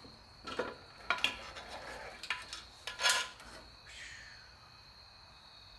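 Metal valve cover of a small-block Chevy 350 being worked loose and lifted off the cylinder head: a few metallic clanks and scrapes, the loudest about three seconds in.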